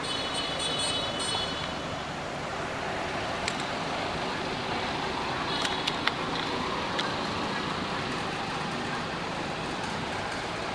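Steady outdoor background noise with the hum of road traffic. A short high chirping in the first second or so, and a few faint clicks with a brief chirp about halfway through.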